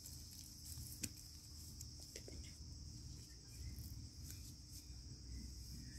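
Steady high-pitched insect chorus, crickets, with a few faint clicks and rustles from a hand picking fruit among the leaves, the sharpest about a second in.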